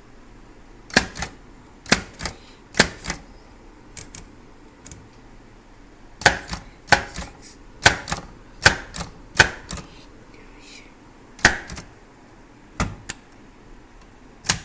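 Brother Deluxe 220 manual portable typewriter being typed on, one key at a time, as a row of numbers is typed. Sharp typebar clacks come at a slow, uneven pace with pauses, and a quicker run of about six strokes comes midway.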